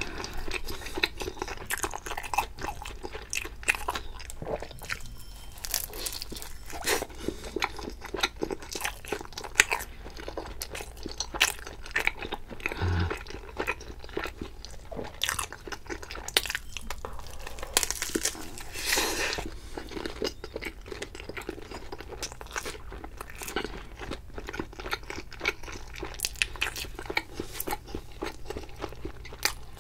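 Chewing and crunching on pizza crust: repeated crisp crunches of the crust being bitten and chewed, close to the microphone.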